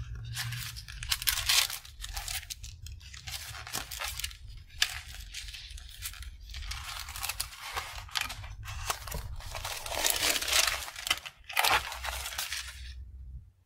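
Sheets of thin paper rustling and crinkling as they are lifted, turned and handled, in a run of uneven bursts that stops just before the end.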